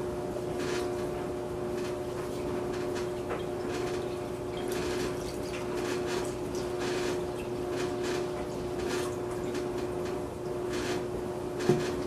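Water pouring steadily from a plastic pitcher into a cold brew coffee maker onto the ground coffee, with a short knock near the end.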